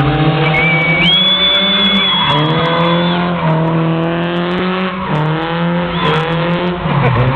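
BMW drift car's engine revving up and down as the throttle is worked through the slides, with the tyres squealing in a long high squeal that starts about half a second in and lasts a couple of seconds, and a short squeal again near the end.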